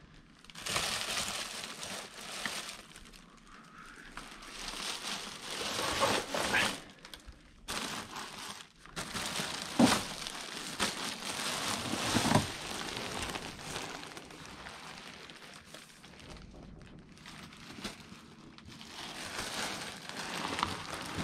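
Plastic bags rustling and crinkling as they are handled and pulled through, rising and falling in bouts, with a couple of louder knocks partway through.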